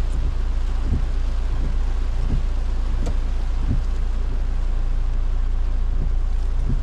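Steady car-interior noise while driving in rain: a low road and engine rumble under an even hiss, with a soft low thud about once a second.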